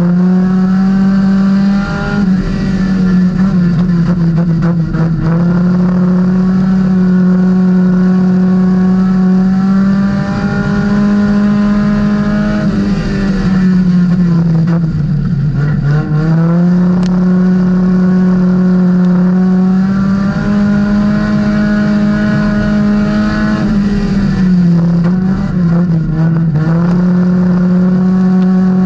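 Four-cylinder Econo4 dirt-track race car's engine, heard from inside the car, running hard at high revs and dipping in pitch several times before climbing again as the driver lifts for the turns, with the longest dip about halfway through.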